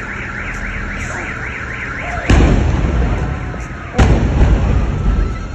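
Warbling electronic alarm, its pitch rising and falling about five times a second, cut off about two seconds in by a loud explosion. A second blast follows about four seconds in, and each one trails off in a low rumble.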